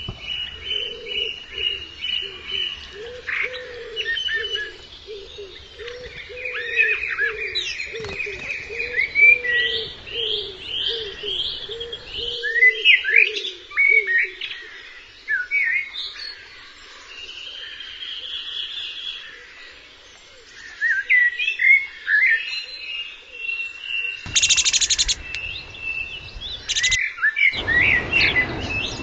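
Spring songbird chorus: several small birds singing quick whistled and trilled phrases, overlapping. Through the first half a low call repeats steadily underneath, and a brief loud rush of noise comes near the end.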